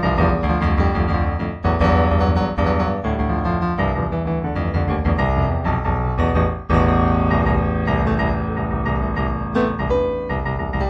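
Solo piano music, with chords struck strongly about one and a half seconds in and again near seven seconds.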